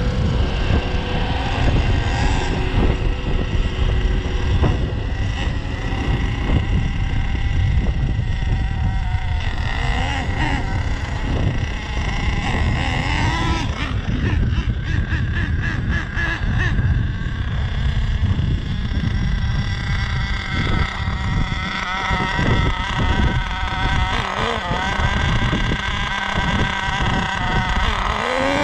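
Small nitro engine of an HPI Savage X46 RC monster truck running and revving. Its pitch rises and falls several times, with a sharp climb near the end.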